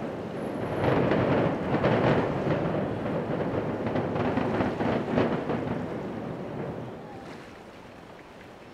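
Demolition implosion of high-rise concrete hotel towers heard at a distance: a deep rumble of the collapse, broken by several sharp cracks about a second apart, dying away after about six seconds.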